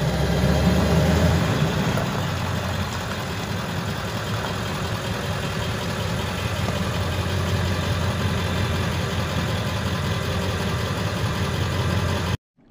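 Pickup truck engine running steadily: a low rumble with an even hiss over it.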